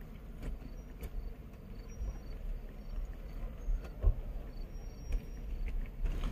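Low steady rumble in a truck cab, with scattered small clicks and handling noises and one sharper thump about four seconds in.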